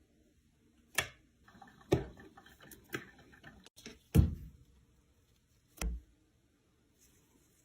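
A handful of separate sharp knocks or thumps about a second apart, the loudest a deeper thud a little past halfway, with a few faint ticks between them.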